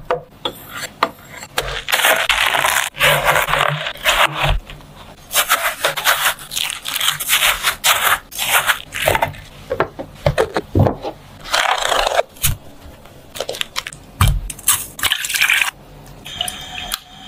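A knife slicing through a watermelon's rind and juicy flesh on a cutting board: repeated crisp cutting and scraping strokes, with sharp knocks of the blade against the board.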